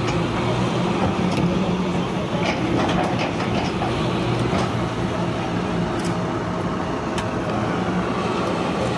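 Heavy diesel engine of road-construction machinery running steadily with a low hum, with scattered light clanks over it.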